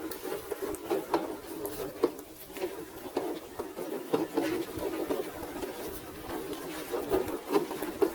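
Small electric RC off-road 4x4 car working over rocks: an uneven clatter of knocks and scraping as its tyres and chassis grind over stone, with many short clicks throughout.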